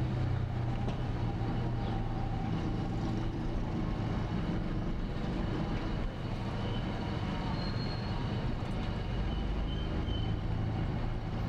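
Motor vehicle running at a steady pace, a continuous low engine hum with road noise.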